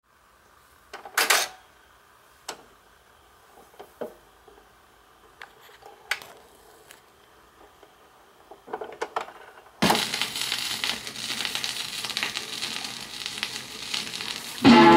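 Record player being handled: scattered clicks and knocks while a 45 rpm vinyl single is set spinning. About ten seconds in the stylus drops into the groove with a thump, followed by steady hiss and crackle of the vinyl's lead-in groove, and the salsa record begins right at the end.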